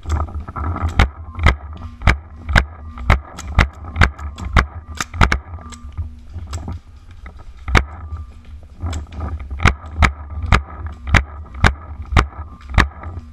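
Paintball markers firing: a string of sharp cracks, irregular at about one or two a second with some in quick pairs, over a steady low rumble.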